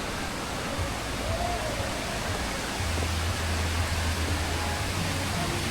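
Waterfall rushing: a steady hiss of falling water that grows a little louder about halfway through.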